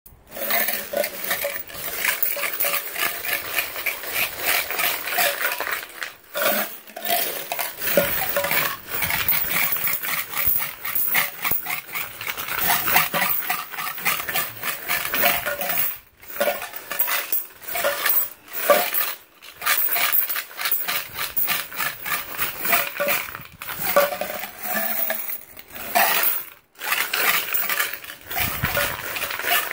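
Coins rattling and clanking inside a tin-can coin bank as it is shaken upside down, with coins spilling out onto a pile of coins. The rattling comes in bouts with a few brief pauses.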